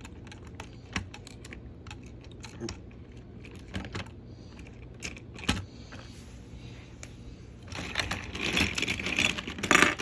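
Scattered plastic clicks and rattles of a Thomas toy train set being handled, with a denser burst of rattling near the end.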